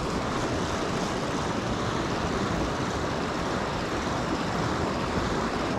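Steady rush of flowing creek water, an even hiss that does not change.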